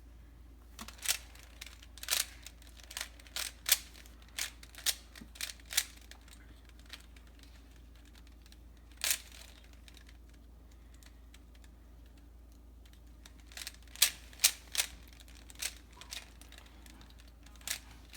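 Cyclone Boys 3x3 speedcube being turned by hand: sharp plastic clicks of the layers snapping round, in quick flurries with a long pause midway and a single click in the pause.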